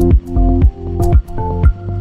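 Background music with a steady beat and short plucked notes.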